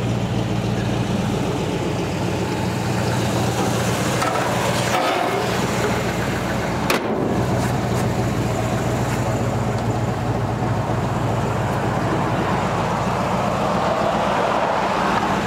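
1964 Chevrolet C10's 283 V8 idling steadily through glasspack mufflers, a quiet exhaust note. A single sharp knock sounds about halfway through.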